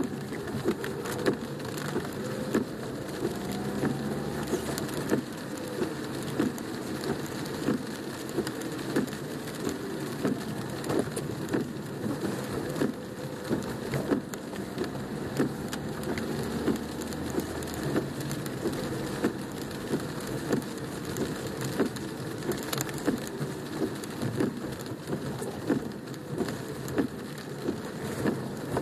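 Heavy rain drumming on a car's roof and windshield, heard from inside the cabin: a steady hiss of rain with many sharp, irregular drop impacts.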